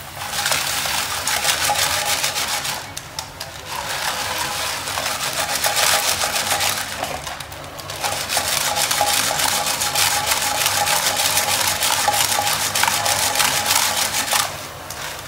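Small snail shells clattering and rattling in a frying pan as they are stirred with wooden chopsticks, over sizzling butter. The clatter eases briefly twice, about three and seven seconds in.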